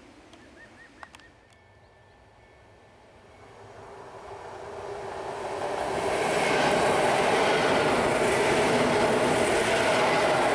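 EN71 electric multiple unit approaching and passing at speed. The rumble of its wheels and running gear on the track builds from about four seconds in and stays loud as the cars go by.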